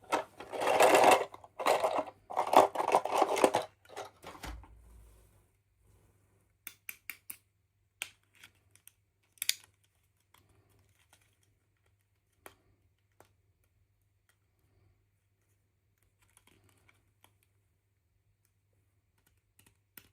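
Toy packaging being handled: a few seconds of loud rustling, then a scatter of small sharp clicks and taps.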